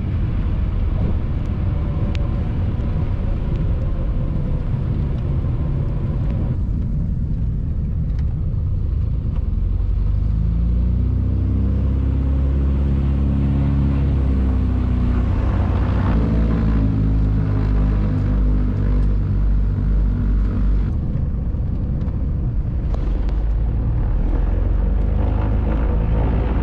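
The twin Lycoming O-540 piston engines of a Britten-Norman Islander running at low power, heard inside the cabin during rollout and taxi after landing. Their pitch falls and rises again as the throttles are worked, and a slow pulsing throb comes in around the middle.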